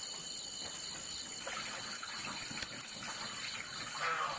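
Water running and splashing irregularly, as from a tap or poured into a basin, over steady high-pitched insect trilling.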